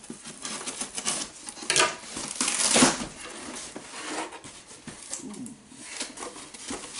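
Cardboard shipping box being opened: a knife slitting the packing tape, the cardboard flaps pulled open, and crumpled packing paper rustling inside. It comes as a series of irregular scrapes and rustles, loudest around the middle.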